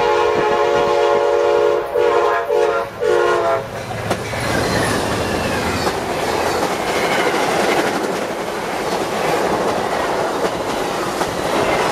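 Passenger train passing close by. Its horn sounds a long chord that breaks off about two seconds in, then three short blasts ending around three and a half seconds in. After that the stainless-steel passenger cars rush past with a steady roar of wheels and clickety-clack on the rails.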